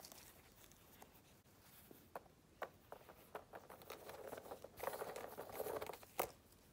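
Gloved hands handling a Louis Vuitton Mini Pochette, a small leather pouch with a gold-tone chain strap: faint scattered light clicks, then a stretch of rustling, ending in a sharper click about six seconds in.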